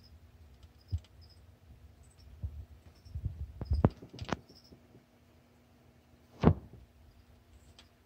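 Handling noise from a hand-held phone camera: soft knocks and rubbing, bunched a little past the middle, with one louder thump about six and a half seconds in.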